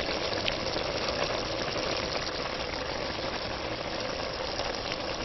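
Egusi soup bubbling in the pot as it steams, a steady dense crackle of small pops.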